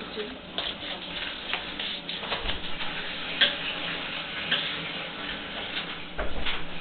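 A baby's hands tapping and patting on a wooden door and its frame: scattered, irregular light knocks, with a sharper tap about three and a half seconds in and a few more near the end.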